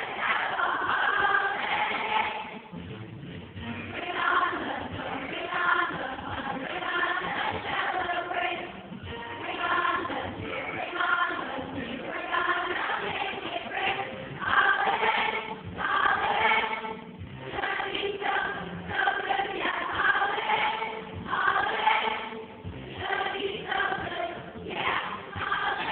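Large children's choir singing a song together, in phrases that pause briefly every second or two.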